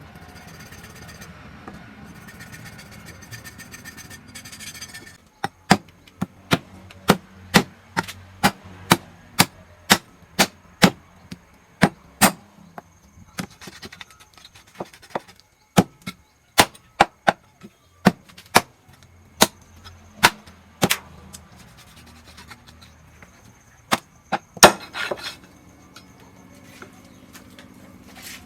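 Knife chopping on a wooden cutting board, in sharp, even strokes about two a second, after a few seconds of steady background noise; a few last chops come near the end.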